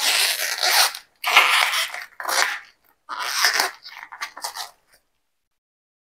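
Crisp tearing and crackling of a banana flower's bracts and florets being pulled apart by hand, in five short bursts over about five seconds.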